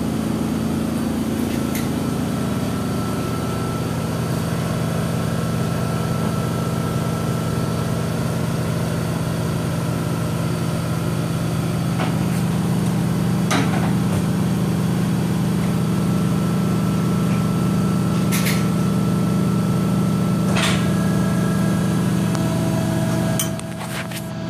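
Steady low mechanical hum of running machinery, with a few sharp clicks and knocks over it. The hum grows a little louder about halfway through and drops off near the end.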